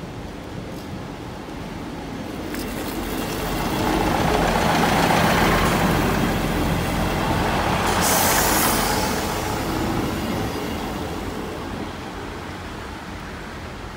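A large vehicle passes, building up and fading away over about ten seconds, with a sharp hiss of air about eight seconds in.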